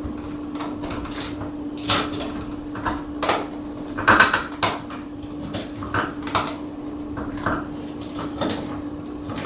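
Irregular metallic clicks, rattles and knocks of a jammed door knob and its latch being worked at with tools, with a steady hum underneath.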